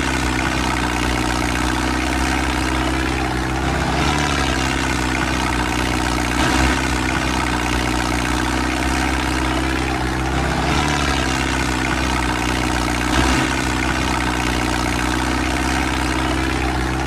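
Tractor engine running steadily at an idle-like pace, the same pattern recurring about every three and a half seconds.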